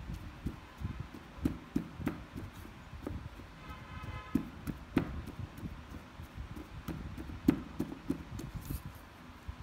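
Wooden pestle pounding and mashing sweet potato in a ceramic bowl: irregular dull thuds and knocks, a few of them sharper where the wood strikes the bowl.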